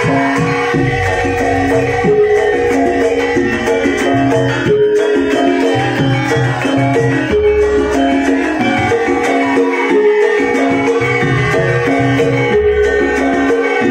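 Live Javanese gamelan accompaniment for dance: metallophones ring out a repeating stepwise melody over low drumming, loud and continuous.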